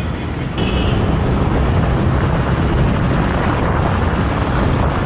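Road traffic noise with a heavy low rumble that grows louder about half a second in, and a short vehicle horn toot near the start.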